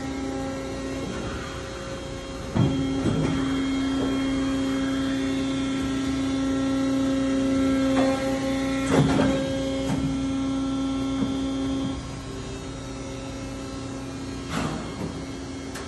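Nissei FV560 injection molding machine running a cycle: a steady machine hum with a pitched whine that steps up in level about two and a half seconds in and drops back about twelve seconds in. A few sharp knocks and clanks of moving machine parts are heard, the loudest about nine seconds in.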